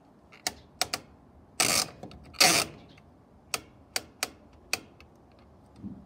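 Clockwork timer dial on a Hotpoint TDC32 tumble dryer being turned by hand, clicking through its steps: three quick clicks, then two longer rasping bursts of turning near the middle, then four more single clicks spaced about a third to half a second apart.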